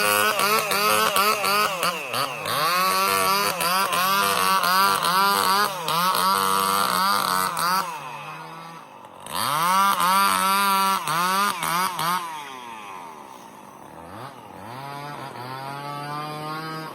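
Stihl MS 070 two-stroke chainsaw running hard, its engine pitch swinging up and down every second or so. About halfway through it drops toward idle, revs back up sharply, then falls off again and slowly builds near the end.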